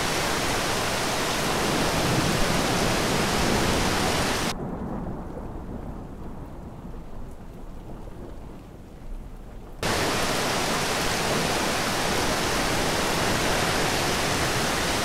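Stormy-sea ambience: a dense, steady rush of heavy rain and churning water. For about five seconds in the middle it drops abruptly to a quieter, muffled low rumble, as if heard from underwater, then cuts straight back to the full rush.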